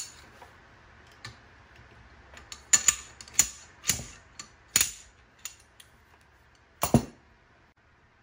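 Sharp metallic taps and clicks of a long metal rod tool against a trumpet's brass valve section, used to free the jammed second-valve piston. They come irregularly, a handful bunched around three to five seconds in and a last knock about seven seconds in.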